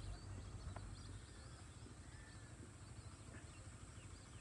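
Faint outdoor ambience: small birds chirping here and there over a low steady rumble, with a couple of light clicks in the first second.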